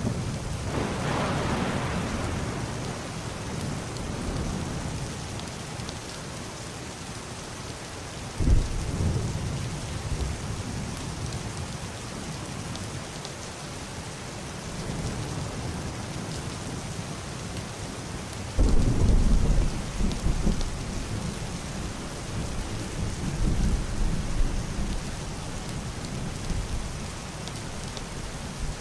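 Heavy rain falling steadily on a roof and glass window, a constant hiss, with muffled distant thunder rolling in low rumbles. The first comes a second in, a sharper one about a third of the way through, and the loudest and longest about two-thirds of the way in, followed soon after by another.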